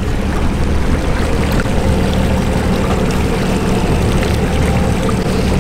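Suzuki 300 V6 four-stroke outboard running steadily at slow speed, a low hum under the rush and splash of water along the hull.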